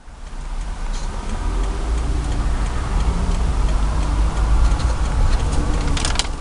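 Vehicle running with a steady low rumble, with scattered light ticks and a cluster of clicks near the end.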